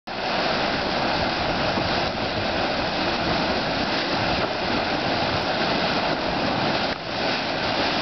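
Churning Caldron thermal pool boiling hard, its water churning and gurgling in a steady rush.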